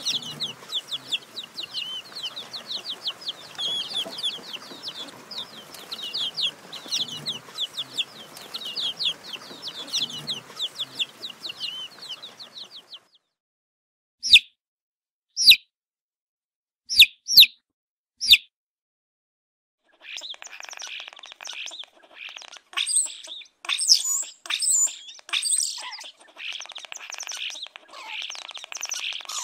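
Baby chicks peeping: a fast run of high, downward-sliding peeps for about the first thirteen seconds, then a pause broken by about five single loud peeps. From about twenty seconds in the peeping grows denser and busier.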